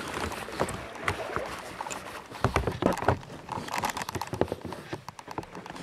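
Sea kayaks and paddles knocking and clattering, a run of irregular sharp knocks that is busiest about halfway through and again near the end.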